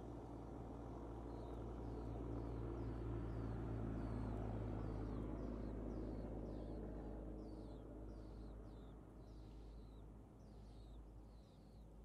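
Nestlings begging: a run of short, high, falling cheeps, about two a second, starting about a second in and growing stronger. Under them a steady low rumble swells and then fades.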